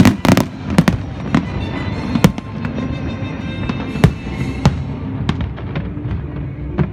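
Aerial fireworks bursting: an irregular string of sharp bangs, thickest in the first half-second, with a loud one about four seconds in. Music plays underneath.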